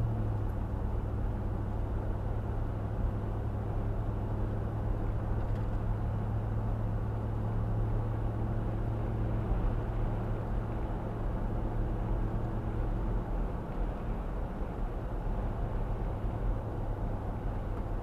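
Steady engine and road noise heard from inside a vehicle's cab driving at around 50 mph, with a constant low engine hum that eases slightly near the end.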